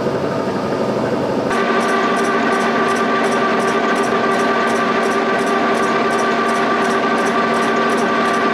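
Milling machine running with its face mill skimming the warped cast-iron deck of an overheated Cummins 4B block. About one and a half seconds in, a steady whine joins in, and a light regular ticking of about three a second sets in as the cutter works across the deck.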